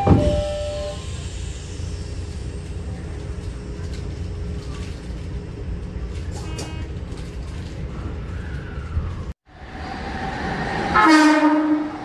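Odakyu 3000 series train's sliding passenger door bangs shut at the start, then a steady low rumble from the train fills the next nine seconds. After an abrupt cut, a train horn sounds loudly near the end.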